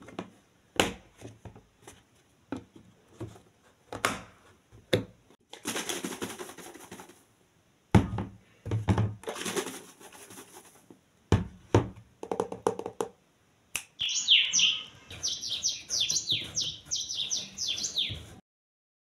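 Plastic food-storage containers and lids handled on a stone countertop: scattered knocks and clicks of plastic, and water sloshing inside a closed container as it is shaken, twice. Near the end comes a few seconds of rapid high chirping.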